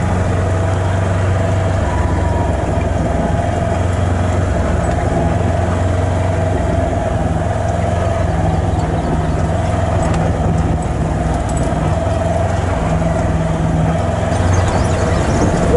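Side-by-side utility vehicle's engine running at a steady pace as it drives along a dirt road, heard from the seat of the open cab.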